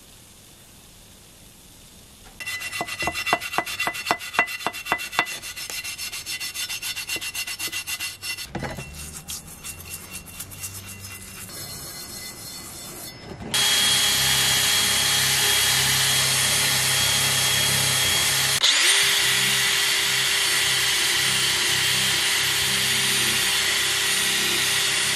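A toothbrush scrubbing softened cement off a steel trowel blade in quick rhythmic strokes, starting a couple of seconds in. About halfway through, a cordless drill spinning a brass wire brush wheel starts against the blade and runs steadily, with a brief break about two-thirds in.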